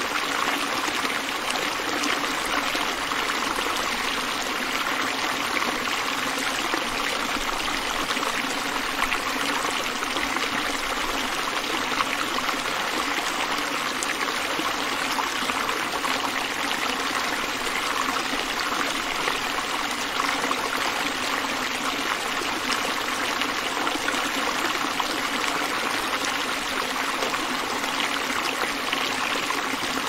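Shallow stream flowing over a smooth bedrock slab, a steady, unbroken rush of water.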